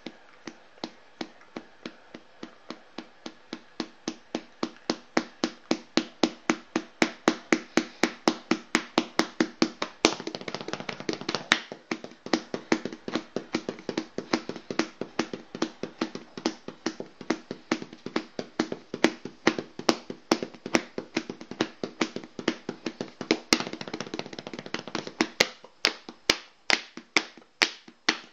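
A steady rhythm of sharp taps, about three to four a second, getting louder over the first few seconds. About ten seconds in, and again later, a denser, louder stretch fills in between the taps.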